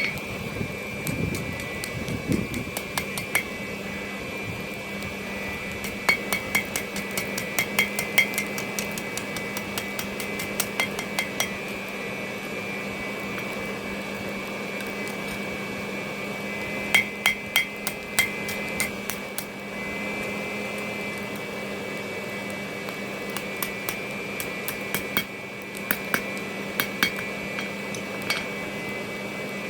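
Blacksmith's hammer striking hot steel on an anvil, in bursts of quick ringing blows with short pauses between, as a small drawer pull is forged to shape. A steady hum runs underneath.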